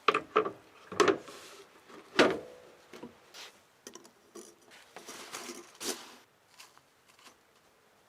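Objects being handled and set down: a series of sharp knocks and clunks, the loudest in the first two and a half seconds, followed by lighter clicks and rustling.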